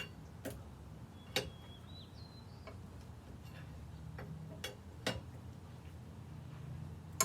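Scattered sharp metal clicks and knocks from hand tools being handled at the car's wheel, about six in all and irregularly spaced, with a brief high squeak about two seconds in, over a steady low hum.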